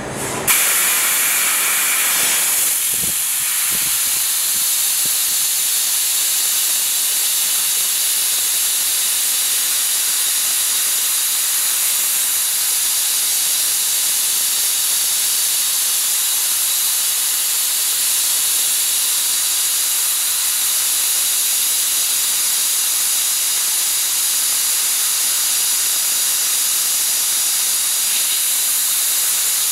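Fiber laser cutting head cutting 10 mm copper plate: assist gas hissing steadily from the nozzle. The hiss comes on suddenly about half a second in.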